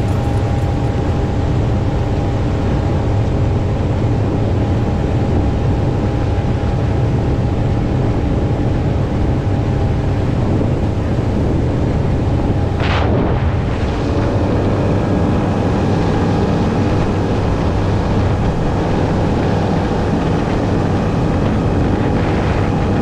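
Outboard-powered boat running at speed: a steady engine drone mixed with rushing wind and water, with one brief louder rush a little past halfway.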